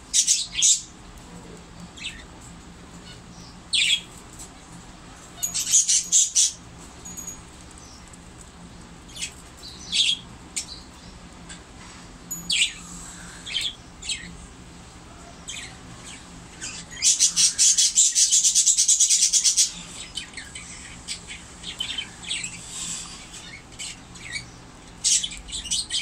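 Cockatiel giving short, high chirps at irregular intervals, with a fast run of rapid pulses lasting about two and a half seconds starting around 17 seconds in.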